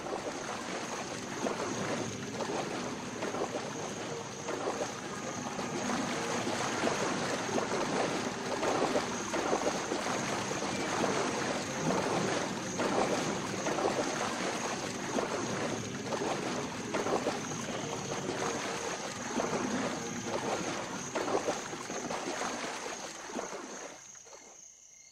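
Horses wading through shallow river water, splashing irregularly, over a steady high-pitched whine. The sound fades out near the end.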